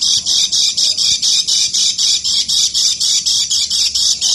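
Kecial kuning white-eye giving its ngeker call: a fast, unbroken run of harsh, scratchy high notes at about six a second.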